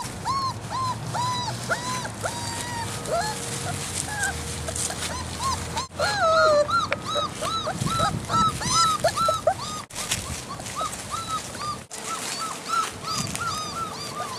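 Great Dane puppies whimpering and crying: many short, high, rising-and-falling cries from several pups overlapping. These are the unsettled cries of very young puppies in unfamiliar surroundings outdoors.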